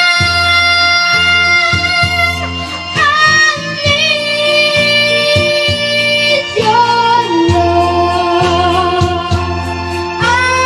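Music: a song with long held sung notes that scoop up into pitch, over a steady pulsing bass beat.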